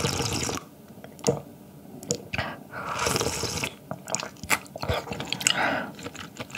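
Close-miked chewing and eating: a run of short wet mouth clicks, with two longer noisy bursts, one at the start and one about three seconds in.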